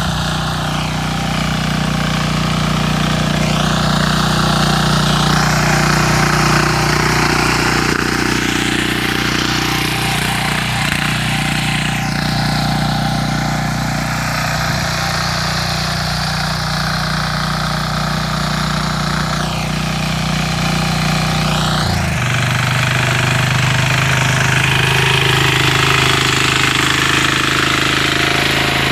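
Motor tiller engine running steadily under load while its tines churn hard soil, with a rough grinding over the engine note. The engine note shifts once, about 22 seconds in.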